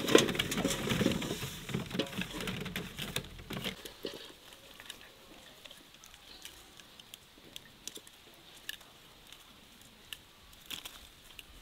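Rustling, crinkling and small clicks of things being handled, busy for about the first four seconds, then only scattered faint clicks.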